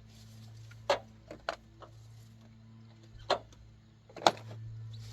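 Several sharp clicks and knocks of engine parts being handled and slid back into place, the loudest about four seconds in, over a steady low hum.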